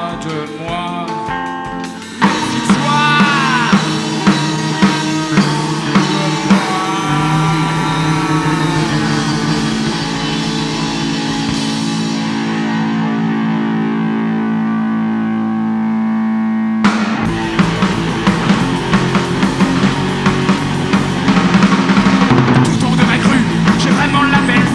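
Live punk rock band playing an instrumental intro. Electric guitar alone at first, then drums and guitar come in hard about two seconds in, with bending guitar notes over a steady beat. A long chord rings out in the middle before the full band crashes back in with fast drumming about two-thirds of the way through.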